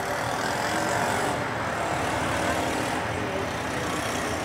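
Steady din of a large outdoor city crowd and street traffic, voices and engines blended into an even roar with no distinct bangs.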